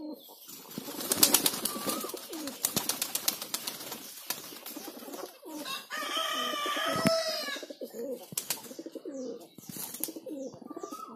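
Domestic fantail pigeons cooing, with a flurry of wing flaps and clicks during the first few seconds as they crowd onto a man's arms and hands to be fed. A louder, higher call, rising and falling, sounds for about a second and a half near the middle.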